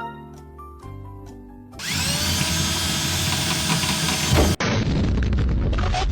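A few notes of music, then about two seconds in a power drill spins up and runs steadily. It cuts off suddenly, and a loud rumbling, crackling noise follows.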